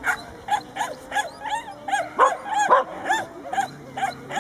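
A dog barking excitedly in an unbroken string of short, high yapping barks, about four a second.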